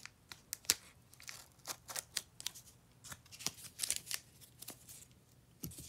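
Hands working at a trading card mailed between pieces of cardboard: irregular small clicks, taps and scrapes of cardboard and tape being handled, a few each second.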